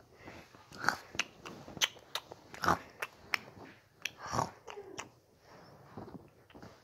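Soft chewing and munching mouth sounds: a handful of louder chomps among quick clicks and smacks.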